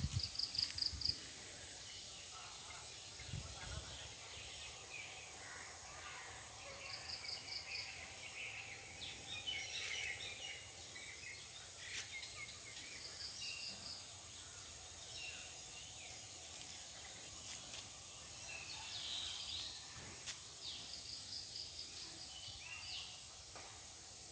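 Outdoor ambience with birds calling. One bird gives a short run of about five quick high notes four times, every six to nine seconds, among scattered other chirps, over a steady high-pitched hiss.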